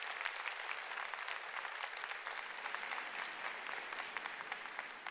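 Large audience applauding at the end of a choral and orchestral piece, the clapping slowly fading.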